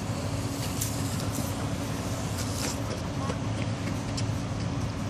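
Steady low drone of a heavy diesel engine running, with scattered faint clicks and ticks over it.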